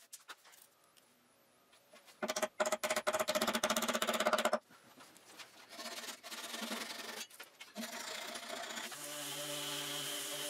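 A flush-cut hand saw makes quick, rapid strokes, trimming a protruding tenon end level with the surface. This lasts about two seconds, starting a couple of seconds in. Near the end a power tool starts up with a steady hum and whine.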